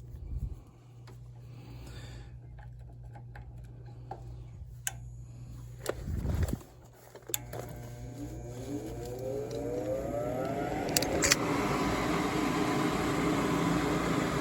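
A 90% Amana gas furnace starting up. A low steady hum and a few clicks come first, then a low thump about six seconds in. After that a motor, most likely the draft inducer, spins up with a whine that rises in pitch over several seconds and keeps getting louder.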